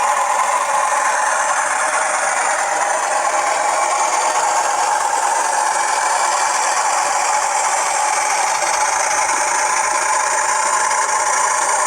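A TTS sound decoder in a model Class 40 diesel locomotive plays a steady diesel engine running sound through the model's standard small speaker. The sound is thin, with little bass, and there is a rattling edge that may be the model's wheels on the track.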